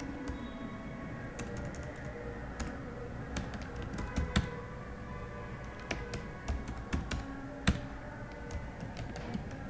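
Typing on a computer keyboard: irregular key clicks, a few struck harder than the rest.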